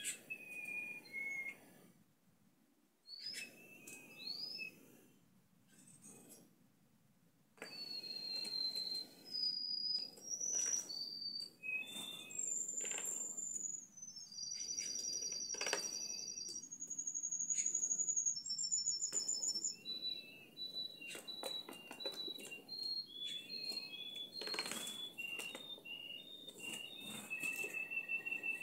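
Domestic canary singing a long song of trills, each a rapid run of repeated notes, jumping between higher and lower pitches, with water splashing and wings fluttering in a clip-on bird bath.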